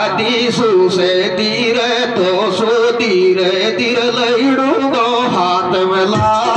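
A male singer performing a Meena folk song (dhancha Meena geet) through a microphone and PA system, with instrumental backing and a wavering melody.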